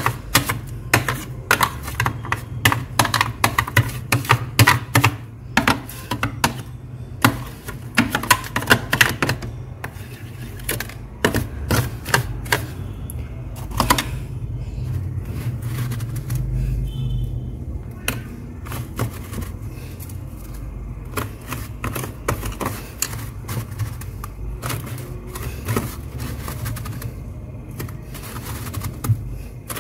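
Fingers digging and scraping through thick, fluffy frost build-up in a freezer compartment: a dense run of sharp, crisp crunches that thins out after about halfway. A steady low hum runs underneath.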